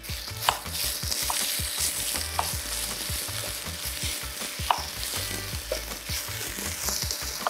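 Onion and carrot sizzling in a frying pan as they are stirred with a wooden spatula: a steady frying hiss with scattered light knocks.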